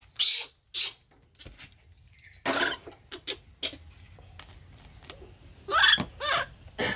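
Baby monkey squealing in short bursts, hungry and begging for its milk bottle, with a couple of wavering, rising-and-falling squeals near the end.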